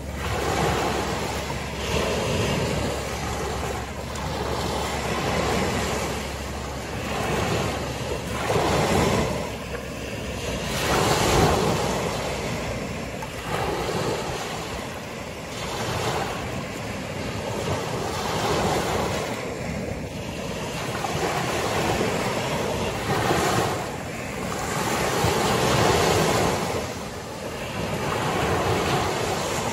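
Small waves breaking on a sandy beach and washing up the shore, the surf swelling and ebbing every few seconds.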